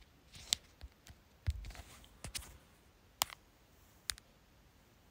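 Handling sounds of a phone being held and tapped: scattered faint sharp clicks and taps, with one duller knock about a second and a half in.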